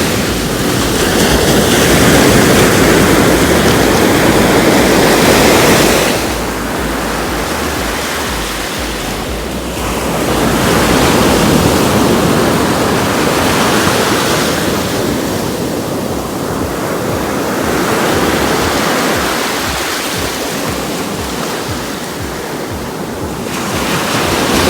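Ocean surf breaking and washing up the sand close by, swelling and ebbing with each wave every several seconds.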